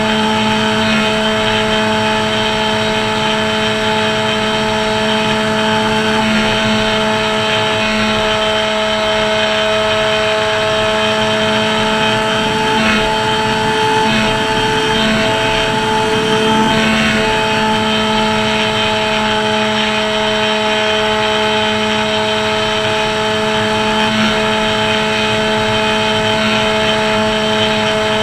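RC flying wing's motor and propeller running at a steady throttle in flight, recorded by the onboard camera: a loud, even drone that holds one pitch with slight wobbles about halfway through.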